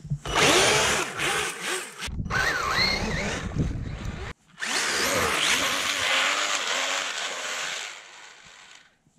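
Brushless electric motor of a 1/5-scale RC snowmobile whining under hard throttle, its long rubber track churning through deep powder snow, in three runs that stop and start abruptly. The sound falls away near the end, when the Traxxas spur gear in the drive strips.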